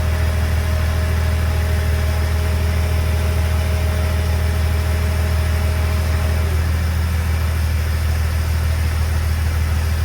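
Turbocharged Holden Commodore V6 engine idling steadily.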